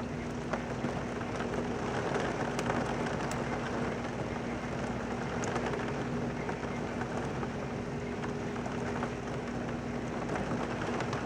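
Heavy rain pouring down in a thunderstorm, a steady hiss with scattered sharper drop ticks, the rain driven by strong wind against a window. A steady hum runs underneath.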